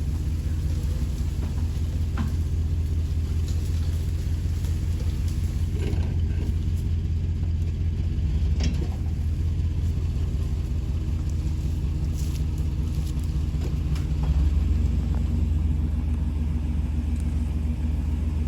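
A pickup truck's engine running steadily at low revs while it tows a tractor, with a few light knocks. Its low note shifts about fourteen seconds in.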